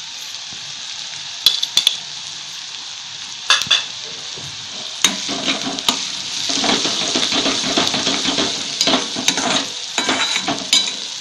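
Onions frying in oil in a steel kadhai, sizzling steadily. A steel spoon knocks against the pan a few times, then stirs and scrapes continuously from about halfway.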